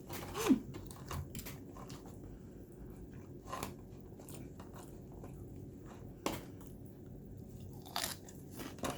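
Crunchy bites and chewing of lobster, with a few sharp crunches spaced a few seconds apart, the crunchiest about six seconds in.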